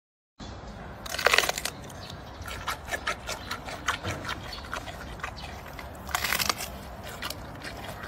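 Giant panda chewing bamboo: many quick crunches and clicks, with loud crunching just over a second in and again past six seconds.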